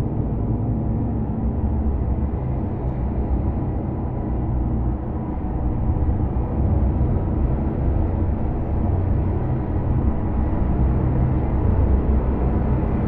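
Dark ambient drone: a dense, steady low rumble with sustained low tones layered beneath it, swelling slightly louder about halfway through.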